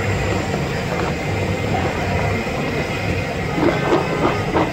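A steady low rumble throughout, with a few short rustling scrapes near the end as cut raw potato fingers slide around in a plastic tub while it is tipped.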